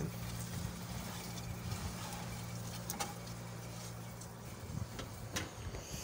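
Refrigerator running after a refrigerant recharge, now cooling properly: a steady low electrical hum that stops about four seconds in, with a couple of sharp clicks.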